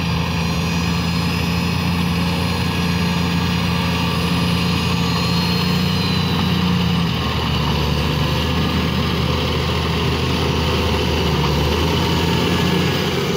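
CAT 14H motor grader's diesel engine running steadily under load as the machine grades, its note dropping slightly about halfway through.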